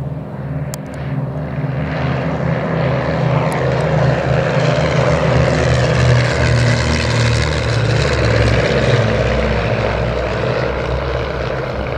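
Piston engines and propellers of three vintage Czech twin-engine light aircraft (a Let L-200D Morava, an Aero Ae-45S and an Aero Ae-145) flying past in formation: a steady drone that swells to its loudest about halfway through, then eases off slightly.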